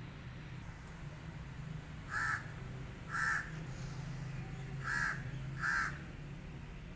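A crow cawing: four short, harsh caws, the first two about a second apart and the last two closer together. A steady low hum runs underneath.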